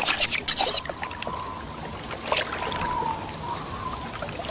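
Hot-spring water splashing for the first second or so, then settling to a quieter trickle, with a faint wavering tone behind it.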